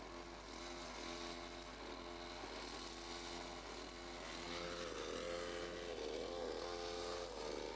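Background music of held chords, changing in a steady repeating pattern about once a second.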